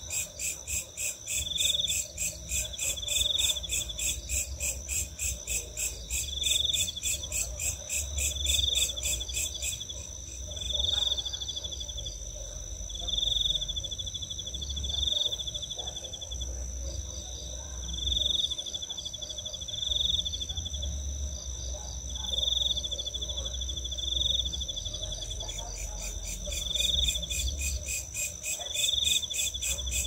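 Night insect chorus of crickets and belalang kerek. A steady high trill runs throughout, with a fast pulsing chirp that stops about ten seconds in and starts again near the end, and another insect call repeating about every two seconds over a low rumble.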